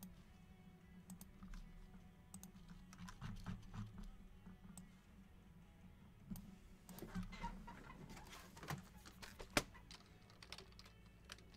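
Faint computer keyboard typing and clicking, irregular keystrokes that grow busier about seven seconds in.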